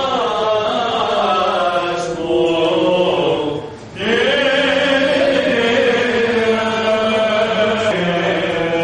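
Byzantine chant of the Greek Orthodox vespers service: voices sing long, slowly gliding melodic lines. The singing breaks off briefly about four seconds in, then resumes on a held note.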